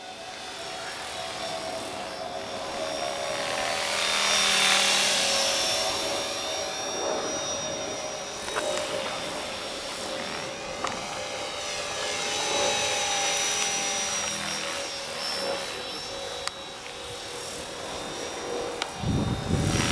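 Radio-controlled model helicopter in flight, its motor and rotors making a steady high-pitched drone that swells and fades as it flies nearer and farther, loudest a few seconds in.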